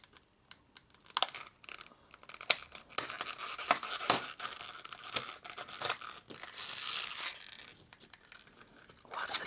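Stiff plastic blister packaging crackling and crinkling as it is cut and pried open with a utility knife. Irregular sharp cracks run throughout, with a longer rustle of plastic about two-thirds of the way through.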